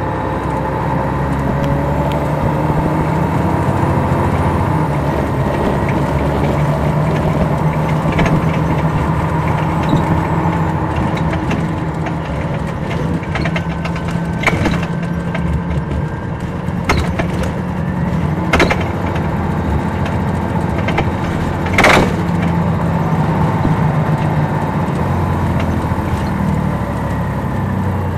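Detroit Diesel Series 60 diesel engine of an MCI D4000 coach running under way, heard from the rear seats inside the cabin. Several sharp knocks or rattles come through over the engine, the loudest about 22 seconds in.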